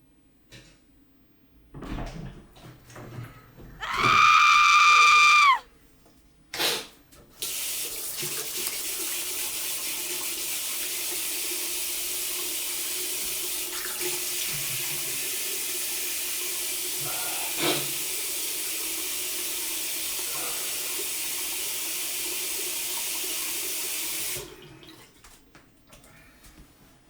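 Water running from a tap into a sink: a steady hiss for about seventeen seconds that stops suddenly. Before it come a few knocks and a brief loud whirring tone that drops in pitch as it ends.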